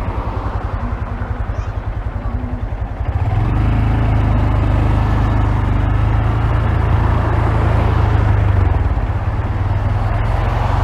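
Honda Grom's 125 cc single-cylinder four-stroke engine running, picked up by a phone in a pocket. About three seconds in it gets louder and stays up, with a brief drop near the end.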